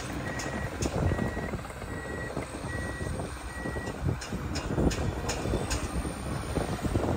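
Snow groomer (ratrak) running on snow, its engine rumbling with scattered clanks from the machine, while its reversing alarm beeps about once a second and then stops about four seconds in.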